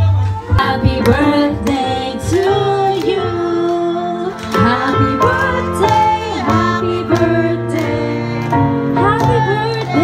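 A song with a singer and a steady drum beat, with heavy bass, played loud through a DJ PA of two Alto TS315 powered speakers and an Alto TS318S powered subwoofer.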